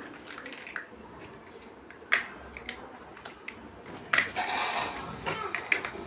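Plastic building bricks being handled and snapped together: scattered clicks, two sharp ones about two and four seconds in, the second followed by a brief rattle of pieces.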